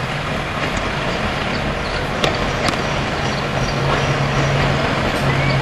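Electric locomotive hauling a coal train as it approaches: a steady rumble with a low hum that grows louder. Two sharp clicks sound a little over two seconds in.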